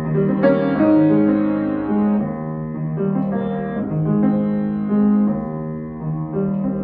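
Grand piano played solo: a continuous classical passage of many quick notes over held lower notes.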